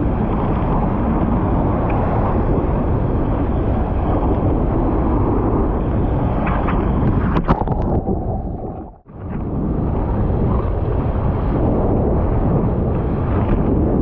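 Wind buffeting the microphone over the noise of heavy breaking surf, a dense low rushing with no speech. It drops out briefly about nine seconds in, then returns.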